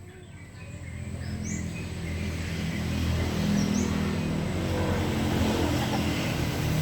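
A motor vehicle's engine approaching, growing steadily louder over the first few seconds and then holding at a steady level. A bird chirps briefly twice.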